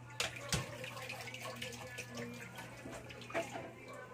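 Faint sound of water splashing or bubbling, with two light knocks within the first second and a low steady hum underneath.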